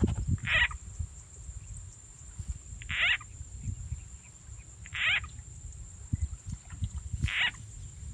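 Frog call sound effect played as a lure: four short calls at an even pace, about one every two seconds, over low rumbling on the microphone and a faint steady high whine.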